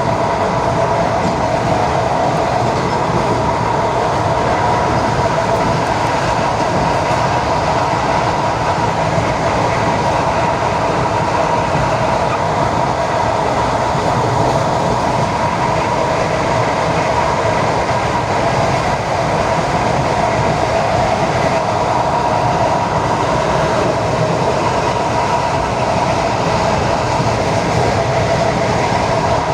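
ED4M electric multiple-unit train running steadily between stations: an even rumble and rush of running noise with a steady whine held through it.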